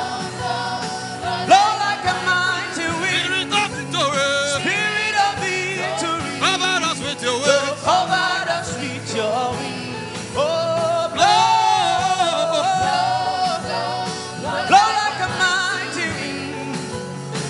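Gospel worship music: a solo voice holds long notes that slide and waver in pitch, over a steady low accompaniment with light regular percussion ticks.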